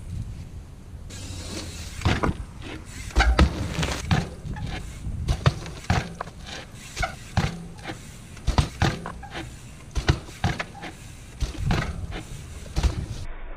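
Mountain bike tyres and frame knocking and clattering as the bike is hopped, tapped against a ledge and landed, a string of sharp impacts a second or so apart.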